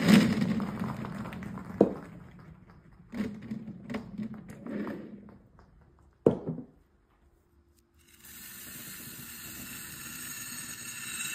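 Beads and water beads clattering and scraping on a cut-glass plate in several sudden bursts with sharp clicks. From about eight seconds in, a steady hiss of many small beads pouring onto a plate.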